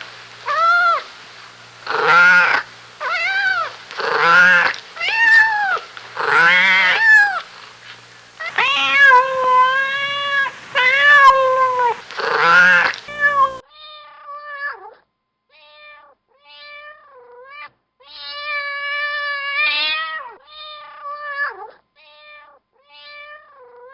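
A domestic cat meowing over and over, about one call a second, each meow rising and falling in pitch. About halfway through, a different, thinner and quieter cat's meows take over, some of them long drawn-out calls.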